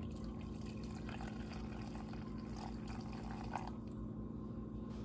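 Hot chai tea pouring from a stainless steel saucepan through cheesecloth into a mug: a soft, steady trickle, over a low steady hum.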